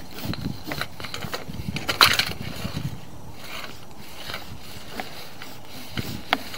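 Sewer inspection camera on its push cable being fed down the pipe: irregular clicks and knocks, with a louder scraping rush about two seconds in.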